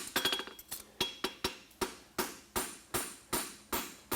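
Farrier's hammer striking a hot steel horseshoe bar on the anvil in an even rhythm, about two and a half blows a second, each with a short metallic ring. The blows are upsetting and flattening the steel while a hind toe-cap shoe is forged.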